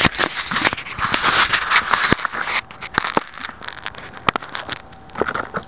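Close handling noise on a Hot Wheels Sizzler spycam car's microphone: plastic rubbing and scraping with many sharp clicks, dropping quieter after about two and a half seconds, with scattered clicks after that.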